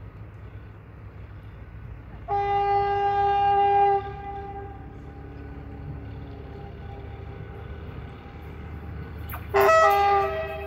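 Horn of an approaching CFR class 060-EA1 (LE 5100 kW) electric locomotive, blown twice: a blast of about a second and a half about two seconds in, and a shorter one near the end. Under it is the low rumble of the oncoming train.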